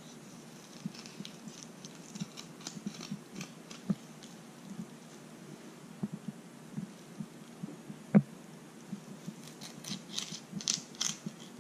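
Fillet knife cutting along the backbone of a pufferfish on a bamboo cutting board: soft irregular ticks and scrapes of the blade on bone and board. There is one sharp knock about eight seconds in, and a run of short scraping strokes near the end.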